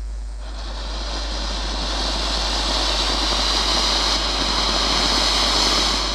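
Large anar (cone fountain firework) spraying sparks with a steady, loud hiss that builds up over the first couple of seconds.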